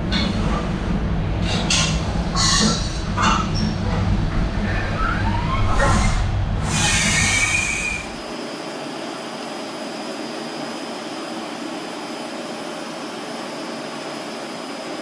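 Okuma MU-10000H five-axis horizontal machining center cutting metal on an engine case, a heavy rumble with intermittent high screeching of the cutter in the metal. About eight seconds in the heavy rumble stops and a quieter steady hiss with a faint high whine goes on.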